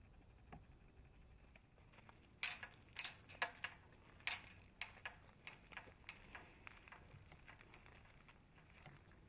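Metal clinks from a chain-link gate's latch and chain as the gate is unlatched and swung open, a handful of sharp knocks. Then footsteps about twice a second, growing fainter as the walker moves away.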